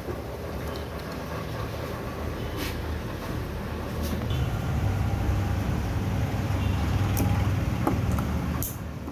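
Low engine rumble of a vehicle going by, swelling from about four seconds in and falling away near the end, with a few light clicks of small metal parts being handled.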